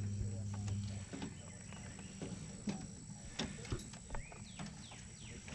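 Light knocks and scuffs of rabbits moving about on the wooden floor of a hutch and against the hand petting them, scattered and irregular. A low steady hum stops about a second in, and a few faint bird chirps come near the end.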